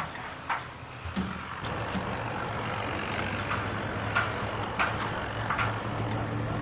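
Building-site sound: an engine starts running steadily about two seconds in, a low even hum, with scattered sharp knocks over it.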